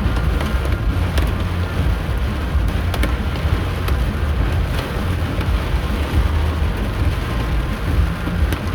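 Car-interior noise while driving through a rainstorm: a steady low road and engine rumble, with rain hitting the car and scattered sharp ticks.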